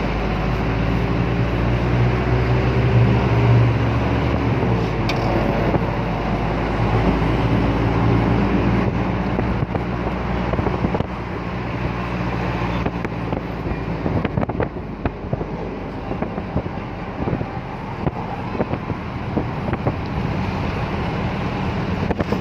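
A vehicle's engine running steadily with road noise, and wind buffeting the microphone, which grows more gusty about halfway through.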